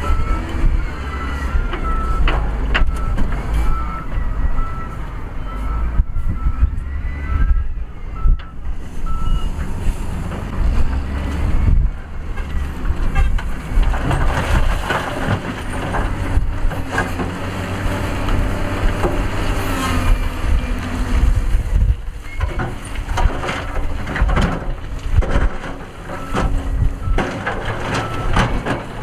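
Heavy diesel engines of a bulldozer and dump truck running steadily at work. A reversing alarm beeps about twice a second for much of the first ten seconds and again near the end. Rocks and rubble knock and clatter as they are pushed and dumped.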